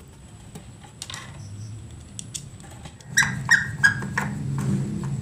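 A hand tool bolting the belt-wheel bracket of a sewing machine stand: a few light metal clicks, then about three seconds in three short, high squeaks in quick succession over a low, steady hum.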